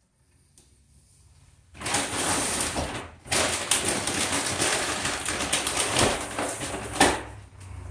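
Rummaging through a bag: loud rustling and crinkling with small knocks, starting about two seconds in, pausing briefly, and ending on a sharper knock about seven seconds in.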